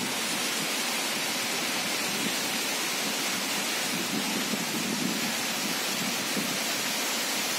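Waterfall: a steady rush of water falling down a rock face.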